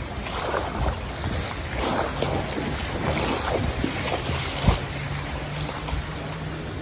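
Fast-moving floodwater rushing and splashing, with wind buffeting the microphone. A single sharp thump, the loudest sound, comes about two-thirds of the way in.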